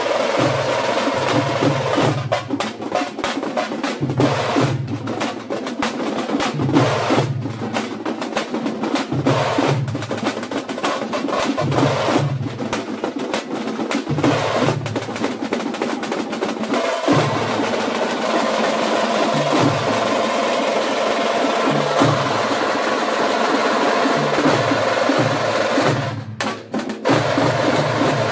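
An ensemble of tamate frame drums and barrel drums beaten with sticks, playing a fast, dense, continuous rhythm, with a brief drop about two seconds before the end.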